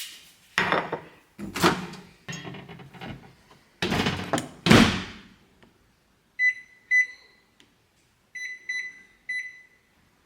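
Knocks and clatter of a door and a cup being handled, then a string of short electronic beeps as a microwave oven's keypad is pressed to heat water.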